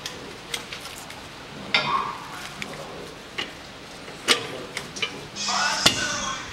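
Metal clinks and knocks of a socket and ratchet being fitted onto the nut of a steering tie rod end, to loosen it. A short rasping stretch comes near the end.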